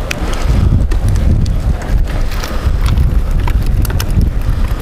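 Wind buffeting the microphone in a steady low rumble, with scattered light clicks and crackles over it.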